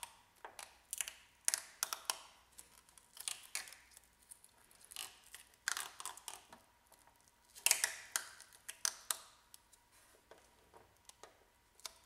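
Dried Plasti Dip rubber coating being peeled off a car's painted trunk lid by hand around a badge: a run of irregular crackles and small tearing sounds, with a louder cluster about two thirds of the way through.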